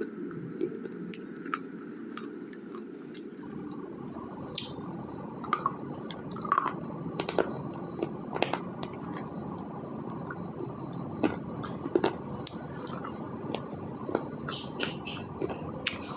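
Close-miked crunching and chewing of black slate pencils: irregular sharp crunches, several a second at times, over a steady background hiss.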